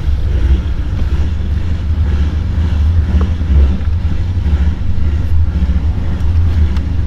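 Ford Mustang 5.0 V8 idling in drive with the AC on, through long-tube headers, an X-pipe and a Roush axle-back. A ghost cam tune makes the idle chop unevenly in a loud, low rumble.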